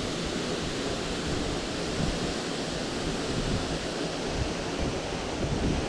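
Waterfall rushing: a steady roar of falling water plunging into a pool, with low rumble and some wind buffeting on the microphone.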